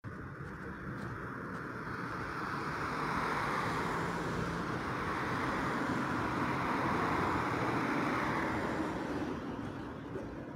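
Cars passing on a street: tyre and engine noise swells to its loudest around seven seconds in, then fades away.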